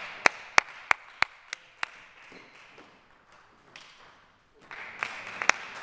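Table tennis ball clicking off bats and table in a rally: a run of sharp, evenly spaced clicks, about three a second, fading over the first two seconds. More clicks come near the end over a rising hiss of hall noise.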